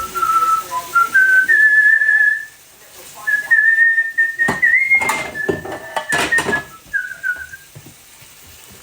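A man whistling a tune in short, stepping notes, with a pause near the middle. A few sharp knocks sound midway through the whistling.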